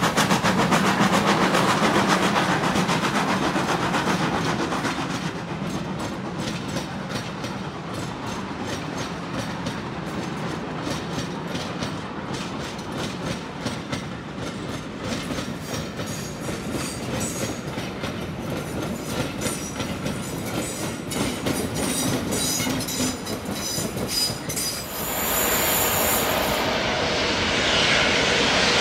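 Steam-hauled passenger train passing, loudest in the first few seconds as the locomotive goes by, then the coaches' wheels clicking over rail joints in a steady clickety-clack as the train runs on, quieter.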